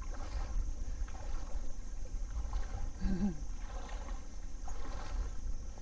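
Wind buffeting the microphone as a steady low rumble, over a light wash of shallow water. A short, faint voice-like sound about three seconds in.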